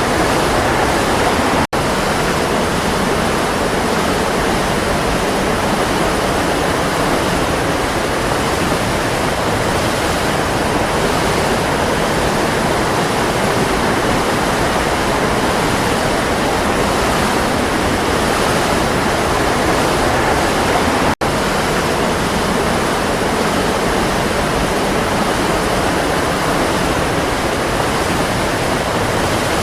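Waterfall: a steady, full rush of falling water, broken twice by a split-second dropout, about two seconds in and about twenty-one seconds in.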